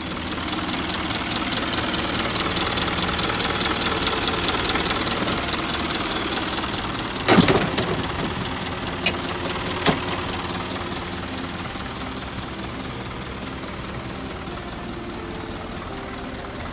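Isuzu Elf truck's engine idling steadily, louder at first and then easing off. A few sharp knocks cut in about seven to ten seconds in, the first the loudest.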